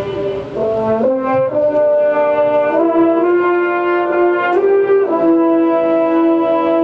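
Symphony orchestra playing live: slow, sustained chords whose pitch shifts a few times in the first few seconds, then a long held chord from about five seconds in.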